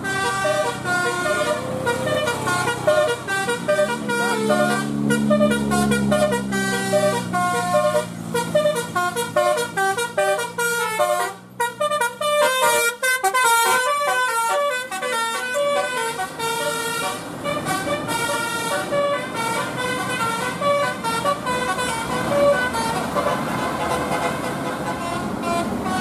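A tour bus's telolet multi-tone horn plays a long tune of quick stepping notes, the Basuri melody. A lower wavering drone rises and falls beneath it about four to eight seconds in.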